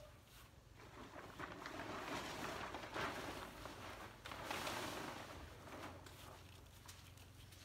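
A large black plastic sheet rustling and crinkling as it is pulled and spread out over grass, building up and loudest in the middle, with louder swishes about three and four and a half seconds in.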